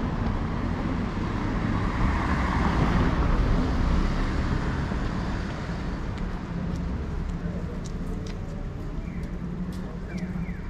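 Street traffic noise: a car passing, swelling and fading over the first few seconds, over a steady low rumble, with a few faint clicks later on.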